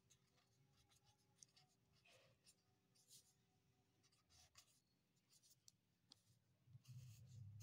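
Faint scratching of a pen writing a word on notebook paper, in short scattered strokes, with a faint low rumble near the end.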